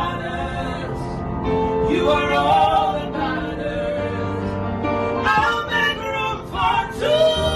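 Background music: a gospel worship song, singing voices holding and sliding between notes over a steady instrumental backing.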